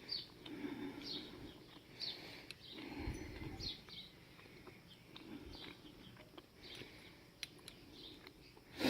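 A small bird chirping faintly in the background, short calls about once a second, with a few light clicks and a sharper knock near the end, from small engine parts being handled.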